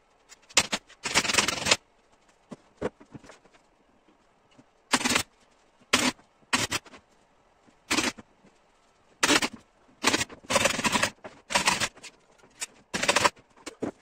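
Pneumatic upholstery staple gun firing into a wooden armchair frame, in single shots and quick runs of shots, with short pauses between.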